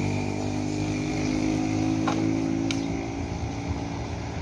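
Engine drone of a road vehicle that has just passed, fading as it drives away over about three seconds, with a couple of faint clicks.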